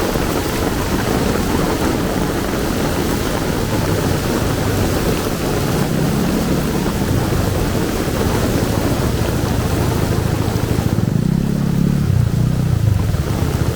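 Heavy rain falling steadily, with a low engine hum coming in partway through and growing louder near the end, as of a vehicle close by, while the rain hiss thins.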